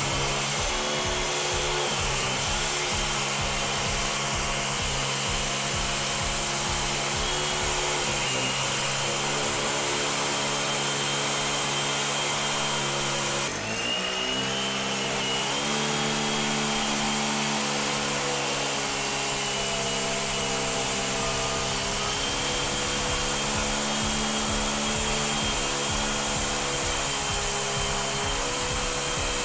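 Makita MM4 mini four-stroke engine running steadily on a power tool, with a brief dip and rise in its sound about halfway through, under background music.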